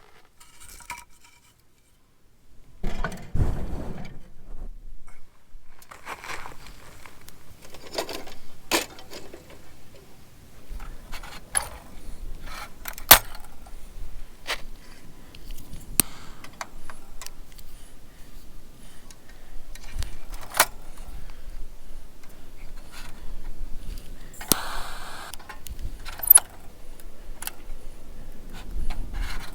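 Small metal objects clinking and jingling, with scattered sharp clicks and knocks as things are handled.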